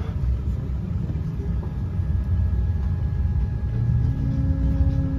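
Low, steady rumble heard inside a Boeing 787-9's cabin during pushback and engine start, with a steady hum coming in about four seconds in.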